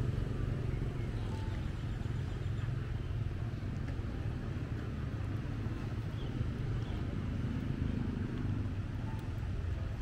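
Steady low rumble of outdoor background noise, with no distinct events standing out.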